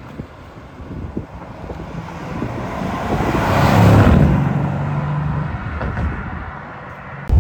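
Mercedes-AMG C63's twin-turbo V8 engine and exhaust, growing louder to a peak about four seconds in, then holding a steady low note that fades a little, before a sudden much louder burst at the very end.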